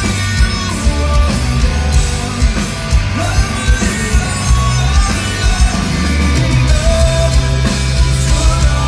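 Hard rock band playing live and loud: distorted electric guitars, heavy bass and a steady drum beat, with a sung vocal line over the top.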